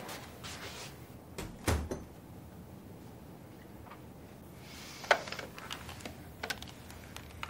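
A few scattered knocks and clicks in a quiet room. The loudest is a dull thump about two seconds in, with a sharp click about five seconds in.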